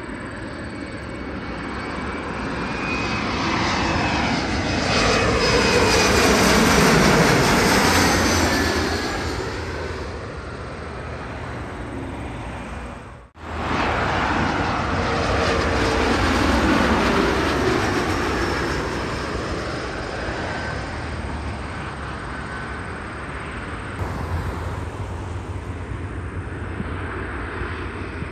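Boeing 737-family jet airliners passing low overhead on final approach, one after another. Each pass builds to a loud jet-engine rush with whining tones that fall in pitch as the plane goes over, then fades. The sound cuts off abruptly partway through before the second pass swells in.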